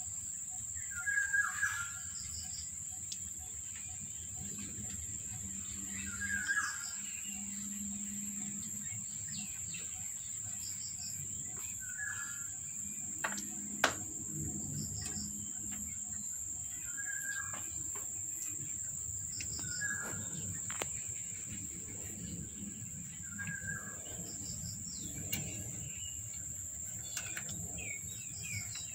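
Steady high-pitched insect drone, with a short chirping call every five seconds or so and one sharp click about fourteen seconds in.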